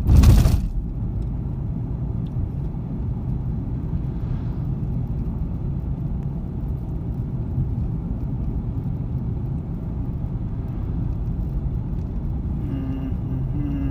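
Car running steadily along a paved road, engine and tyre rumble heard from inside the cabin, with a short loud thump right at the start.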